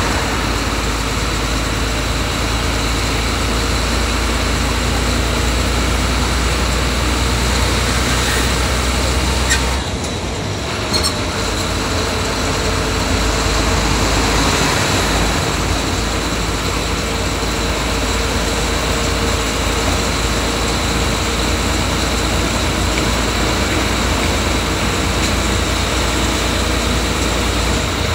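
Inside a moving bus: steady engine and road noise while it runs along the highway. The low rumble drops briefly about ten seconds in, then comes back.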